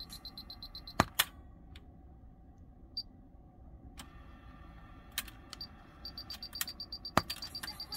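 Several sharp clicks of the front-panel buttons being pressed on a Pioneer KEH-M7400RDS cassette car stereo with its output turned right down. Under them are a faint hum and a faint, fast, high ticking that fades in and out.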